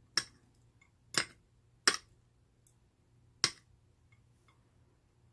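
Metal chopsticks clinking against a ceramic plate while tossing radish microgreens: four sharp clinks in the first three and a half seconds.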